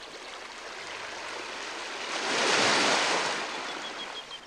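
Sea waves washing in: a hiss of surf that swells to a peak about halfway through, then dies back.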